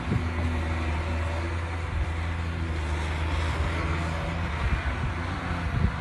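Hyundai HX300 excavator's diesel engine running steadily under load as the machine swings its upper house and boom around, with a low steady engine tone throughout.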